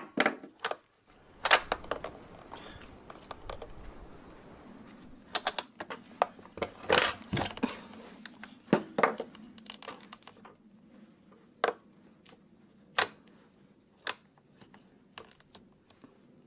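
Hands working the starter rope and plastic pull handle of an Echo chainsaw to free a temporary nut from the rope: rubbing and rustling with many small clicks and knocks for the first ten seconds or so, then only a few isolated clicks.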